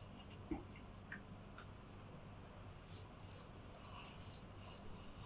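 Small metal-bodied trimming plane (a Kakuri replacement-blade hobby plane) taking thin shavings off a wooden strip: faint short scraping strokes, with small clicks and a light knock about half a second in. The freshly adjusted blade is now biting into the wood.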